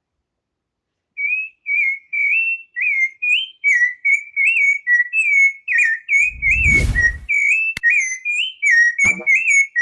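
A songbird singing a rapid, unbroken string of short whistled notes, starting about a second in after a moment of silence. A dull thump comes in the middle, and two sharp clicks follow near the end.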